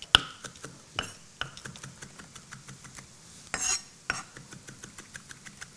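Chef's knife chopping fresh rosemary on a wooden butcher block: quick, light knocks of the blade against the wood, the sharpest right at the start, with a brief rasping noise about three and a half seconds in.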